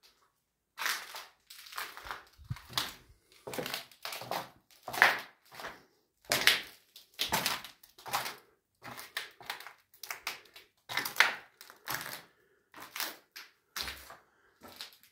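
Footsteps crunching over fallen plaster and rubble on a debris-covered floor, an uneven series of gritty crunches about one to two a second, starting about a second in.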